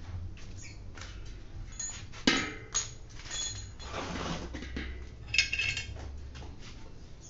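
Metal tools and bicycle parts clinking and knocking as they are handled, with one sharp knock about two seconds in and a ringing metallic clink a few seconds later.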